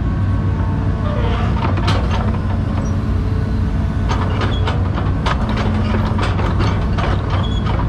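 Hydraulic excavator's diesel engine running steadily, heard from inside the cab, with repeated knocks and rattles as the bucket is curled in and out.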